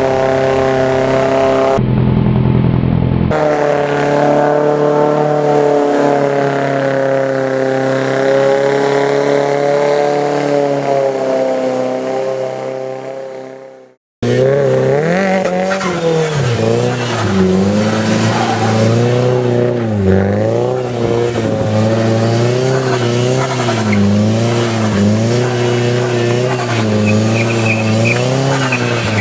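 Nissan S14 200SX turbo engine held at steady high revs with tyre noise, fading away about halfway through. After a brief gap, the engine rises and falls in revs roughly once a second with tyre squeal, as in a sustained drift.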